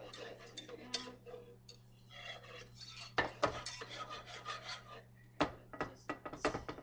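Wire whisk beating flour into oil for a roux in a stainless steel skillet, its wires rapidly clicking and scraping against the pan. The quick strokes come loudest about three seconds in and again near the end, over a steady low hum.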